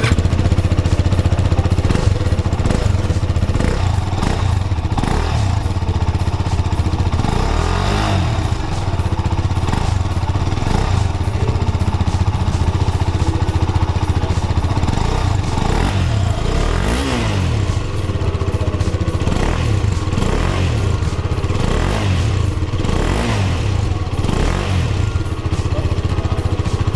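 KTM RC250 Special Edition's single-cylinder 250 cc engine running through its side-mounted muffler, heard right at the muffler outlet. It idles steadily, with several quick throttle blips in which the revs rise and fall back.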